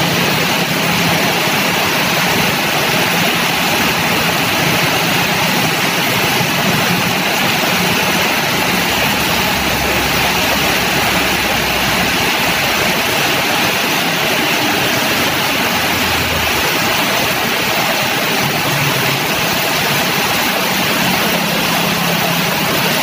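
Heavy downpour of rain with slow traffic of cars and motorcycles driving through floodwater on the road: a steady dense hiss of rain and splashing tyres, with passing engines coming and going underneath.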